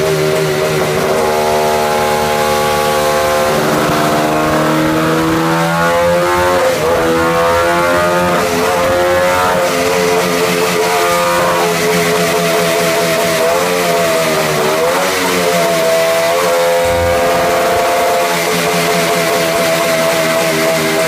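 Suzuki GT500's two-stroke parallel-twin engine running under load on a rolling-road dyno. The revs climb about four seconds in, rise and fall through the middle, and settle to a steady run near the end. The engine is being taken through its rev range because it fuels too lean at the top end and its pilot jets are too small.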